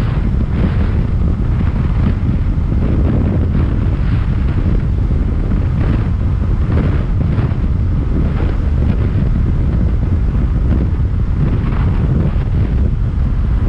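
Loud, steady wind noise buffeting the microphone on a motorcycle being ridden: a dense low rumble with irregular gusts of hiss.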